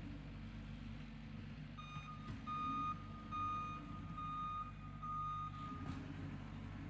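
Backup alarm on the power-raking machine beeping about five times in a steady pulse, over its engine running low. The beeps start about two seconds in and stop about six seconds in, as the machine reverses.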